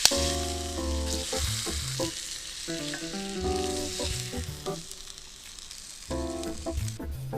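Food frying in a cast-iron skillet, with a steady sizzle that thins out and stops shortly before the end. Background music with plucked notes plays alongside.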